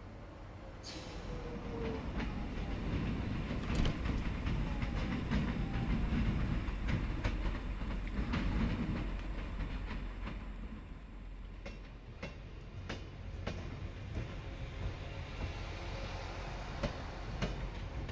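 Passenger train rumbling along the tracks, its wheels clacking over rail joints. The rumble grows louder for several seconds and then eases off.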